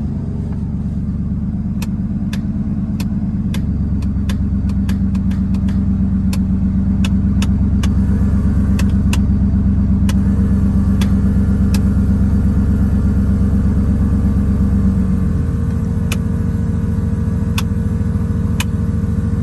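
Supercharged Ford F-150's engine running at idle, a steady low hum that shifts a few seconds in and again about fifteen seconds in. Scattered sharp clicks sound over it.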